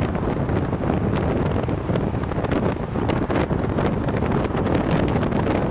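Heavy wind buffeting the camera microphone at highway speed, over the rush of traffic and road noise.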